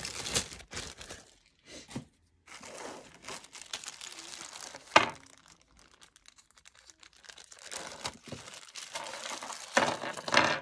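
Clear plastic zip-top bag crinkling as a necklace is slipped in and the bag is pressed shut between the fingers, with one sharp click about halfway through and a louder spell of crinkling near the end.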